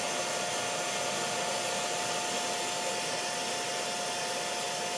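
Handheld hair dryer running steadily: an even rush of air with a constant motor whine.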